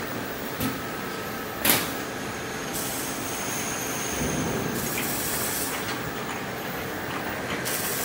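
Automatic glass bottle washing machine running, a steady mechanical din from its chain-driven bottle carriers. One sharp clank comes about two seconds in, and a thin high whine runs for a couple of seconds midway.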